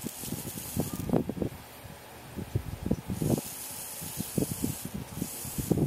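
Tiny servo gear motors of a miniature RC truck spinning its wheels in two short spells, heard as a thin high hissing whir, about three seconds in and again near the end. Throughout there are light irregular knocks and taps from handling the truck and tapping the phone screen; these are the loudest sounds.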